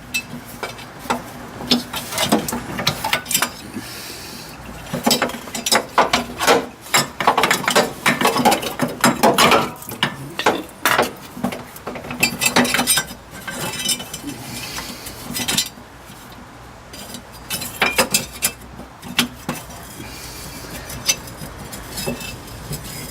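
Irregular clicking, clinking and rattling of fuel-line fittings and the fuel filter being handled, as the lines are pulled off the old filter and pushed onto a new K&N high-flow filter, in clusters of quick clicks with short pauses.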